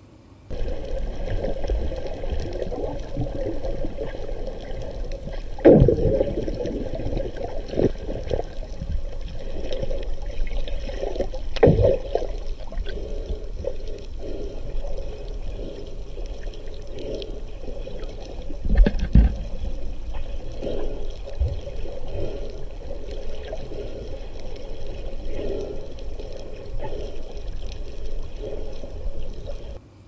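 Moving water gurgling and sloshing, a continuous watery wash with a few louder whooshing surges about six, twelve and nineteen seconds in.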